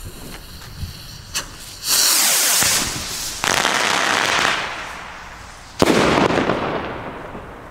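A firework rocket (Pyroland Ignis) launching: a loud rushing hiss starts about two seconds in and a second rush follows a second later as it climbs. Near six seconds comes a sudden sharp bang as it bursts, fading away.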